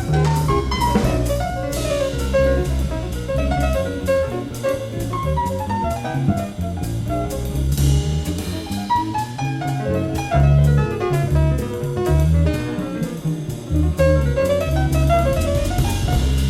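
Live small-group jazz: double bass and drum kit keeping time under a quick melodic solo line of running notes, heard from a cassette recording of an FM radio broadcast.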